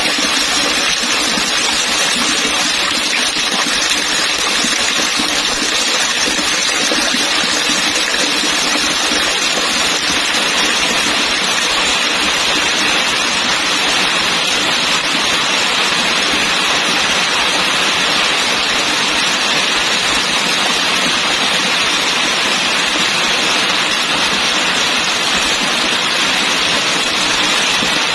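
Falling water splashing onto water: a loud, steady, dense hiss with no let-up or change.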